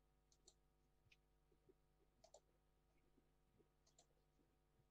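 Near silence with a few very faint short clicks.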